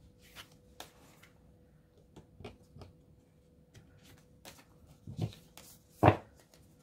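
Tarot cards being slid across, gathered and laid down on a cloth-covered table: soft scrapes and light taps, with a louder thud about six seconds in as a card is set down. A faint steady hum runs underneath.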